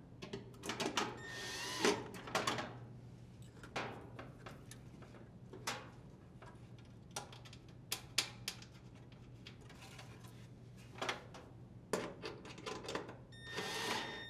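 Cordless driver spinning screws into the dryer's sheet-metal base to secure the motor plate: short bursts of motor whine, the longest near the start and another near the end, with metallic clicks and clatter from handling the tool and screws in between.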